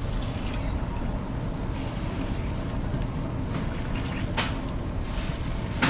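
Metal hotteok press and tongs clinking twice on a steel griddle, once about four seconds in and once near the end, over a steady low rumble of background noise.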